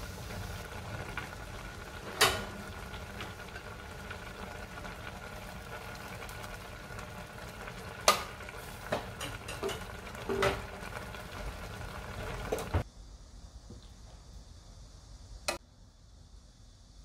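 Beef bulgogi simmering and bubbling in a stainless steel pot, with a few sharp knocks of a utensil against the pot. About two-thirds of the way through the bubbling stops, leaving a quieter background and one more knock.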